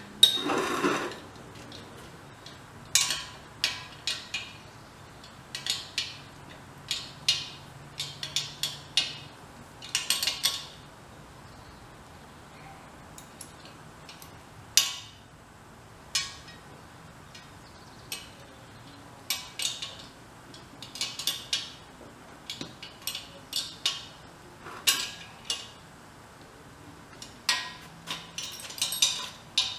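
Irregular metallic clinks and taps of hand tools and hardware against the steel tank and reactor fittings as the fasteners are tightened down, with a heavier clunk about a second in.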